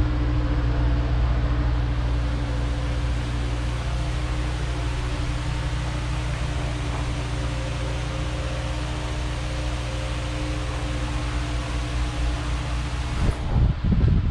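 A steady mechanical hum with hiss, holding one pitch throughout. About a second before the end it gives way to wind buffeting the microphone.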